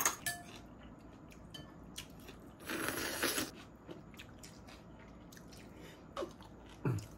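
Eating at the table: crunching and chewing of yeolmu (young radish) kimchi noodles. A sharp clink of a utensil on a dish comes at the start, and a louder burst of eating noise about three seconds in.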